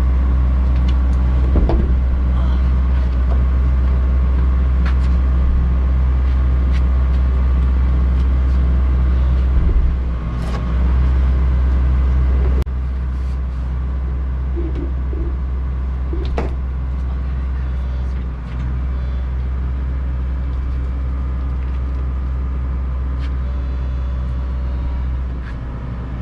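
A steady engine-like hum runs throughout, with scattered short knocks. It drops in level and changes character about twelve seconds in.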